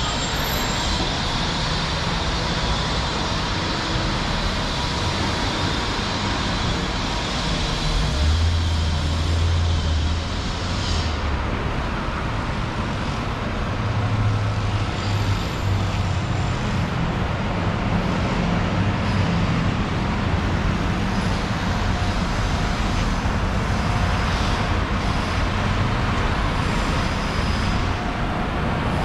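Steady road traffic on a city street, with vehicles passing. A low engine drone comes in about eight seconds in and again from about fourteen seconds, and a high whine from a passing vehicle cuts off about eleven seconds in.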